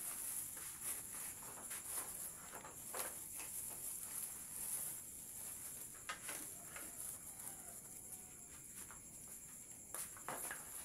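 Steady, high-pitched, pulsing chirring of crickets or other insects, with scattered light knocks and clicks from trays and pans being handled, the loudest about 3 s, 6 s and 10 s in.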